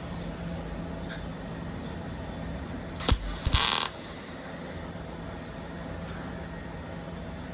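A welder tacking steel: about three seconds in, a sharp click is followed by a short sizzling burst of arc lasting under half a second, laying one tack weld. A low steady hum runs underneath.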